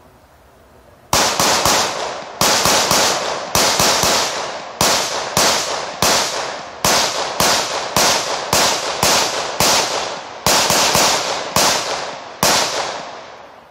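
Rapid gunfire from a handheld firearm: over twenty shots in about twelve seconds, starting about a second in, fired singly, in pairs and in threes. Each shot is followed by a ringing echo.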